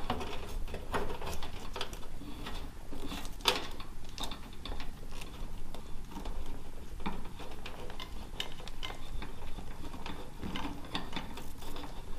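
Plastic twist-on wire connectors and electrical wires being handled and tugged while the fireplace is wired: scattered small clicks and rustles.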